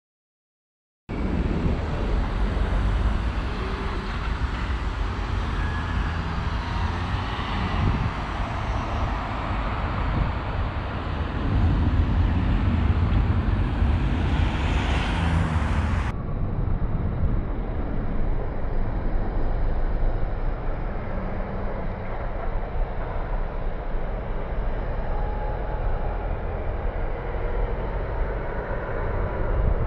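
Road traffic, with cars and buses passing steadily, starting about a second in. About sixteen seconds in the sound turns duller and lower: the same street recording played at half speed.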